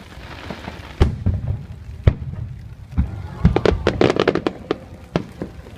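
Aerial fireworks shells bursting: single booms about a second apart, then a rapid flurry of crackling pops in the middle, and a few more bangs near the end.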